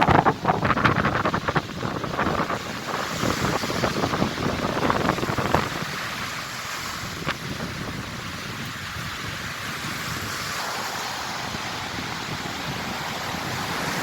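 Strong onshore wind buffeting the microphone over the rush of rough sea surf. The gusts are heavy for the first few seconds, then ease about halfway through into a steadier rush of waves and wind.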